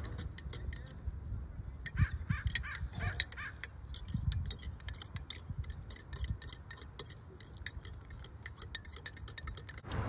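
Metal spoon stirring hot chocolate in a glass mug, clinking rapidly and repeatedly against the glass, with crows cawing a few times.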